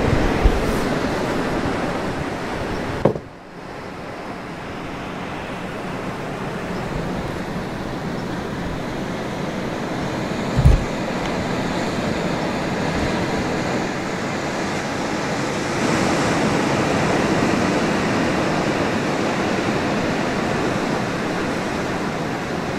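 Steady rushing outdoor noise with no distinct tone, dipping briefly about three seconds in. A few short low thumps stand out, the loudest about ten seconds in.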